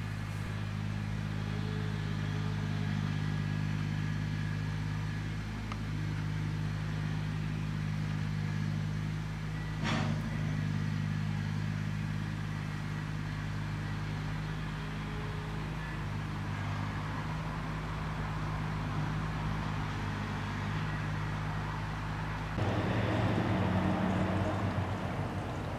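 A steady low mechanical hum of several held tones, with one sharp click about ten seconds in. About 23 seconds in the hum changes and a louder hiss comes in.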